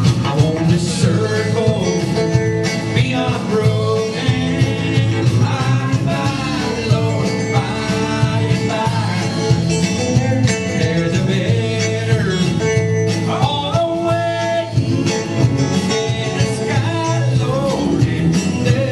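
Live band playing a song: a man singing over a strummed acoustic-electric guitar, bass guitar, electric guitar and an electronic drum kit.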